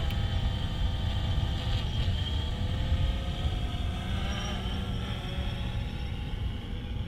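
Steady low rumble of wind on the microphone, with the faint, steady whine of a quadcopter drone's propellers hovering, its pitch wavering slightly about halfway through.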